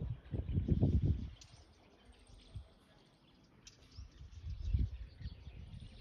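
Outdoor ambience: irregular low rumbles, heaviest in the first second and again near five seconds in, with a few faint bird chirps.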